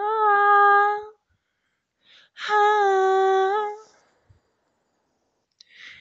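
A single high voice singing unaccompanied, wordless: a held note ends about a second in, then after a pause a second steady note is held for about a second and a half. A short breath is heard just before the end.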